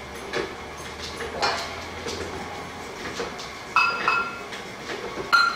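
Sugar being scooped from a plastic tub with a metal measuring cup and poured into a stainless stand-mixer bowl: light scraping and knocking, then ringing metal clinks as the cup taps the bowl, twice close together near four seconds in and once more near the end.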